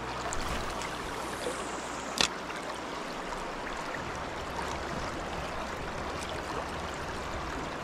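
Steady rushing of river current flowing past, with one short sharp click about two seconds in.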